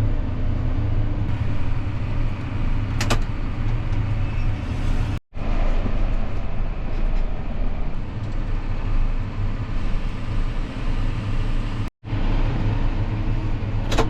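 Loader tractor engine running steadily with a deep hum, broken by two abrupt gaps about five and twelve seconds in.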